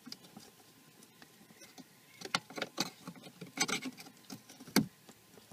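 Irregular clicks and taps of small plastic and metal parts as a fog light and its spring nut are worked into a car's front bumper by hand, with one louder knock near the end.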